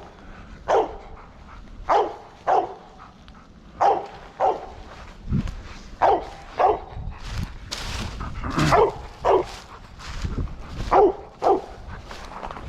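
Squirrel dog barking at a tree, a dozen or so short barks often coming in pairs: barking treed, the sign that the dog has a squirrel up the tree.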